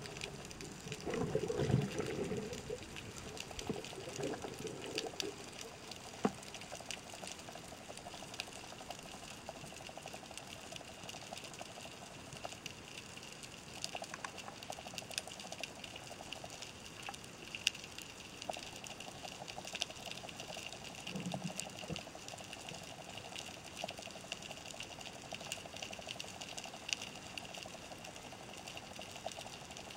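Underwater ambience, heard through a camera mounted on a speargun: a steady hiss and hum with many scattered clicks and crackles. A louder low rushing in the first few seconds, and a short one about 21 seconds in, as water moves past the camera.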